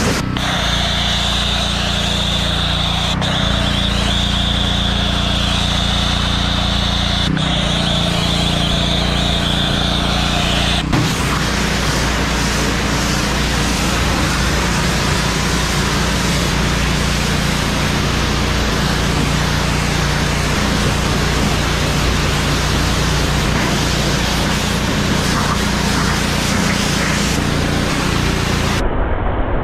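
Pressure washer spraying water through a wand onto a truck and bus body: a steady hiss of spray over the washer's low, steady motor hum. Its sound changes abruptly a few times, about 3, 7 and 11 seconds in.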